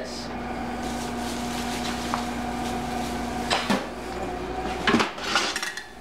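Metal wire rack and baking pan of a toaster oven being handled and slid, clattering, with sharp knocks about three and a half and five seconds in. A steady low hum runs underneath until the first knock.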